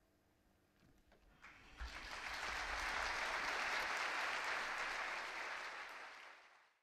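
Audience applauding: the clapping starts about a second and a half in, swells quickly to a dense, steady applause, then fades out near the end.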